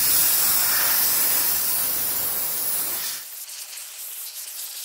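Hose nozzle spraying hard against a motorcycle engine to clean off soda-blasting residue, with a loud even hiss. About three seconds in it cuts back sharply to a lighter, thinner hiss.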